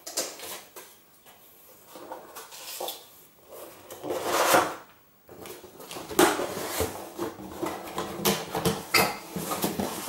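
Cardboard packaging being handled: a swelling scrape of cardboard sliding about four seconds in, then a run of knocks and taps as the box and its insert are moved and set down.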